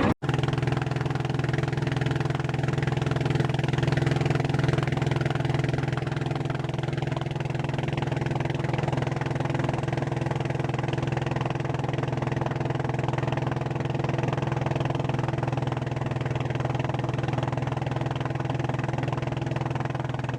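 Long-tail boat engine running at a steady speed, an even hum with no revving.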